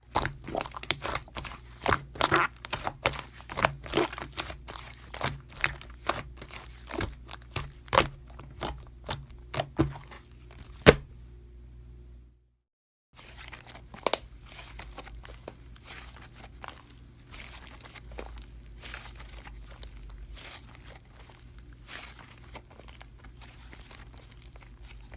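Slime being squeezed and pressed by hand, giving a run of sharp crackling pops for about eleven seconds. After a brief cut to silence, softer, denser crinkling follows.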